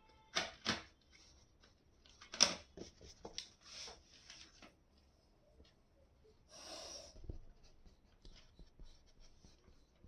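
Paintbrush scratching over textured canvas with oil paint in short strokes: two quick strokes near the start, a flurry from about two to four and a half seconds in, and a longer scrape about six and a half seconds in.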